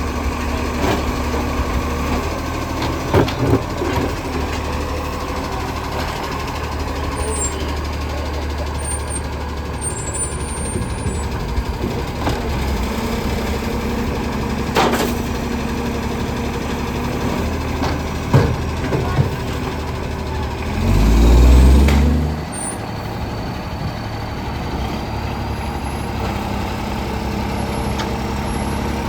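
Acco side-loader garbage truck's diesel engine running steadily with the loud roar of an exhaust leak, with a few sharp clicks and one louder surge about three-quarters of the way through.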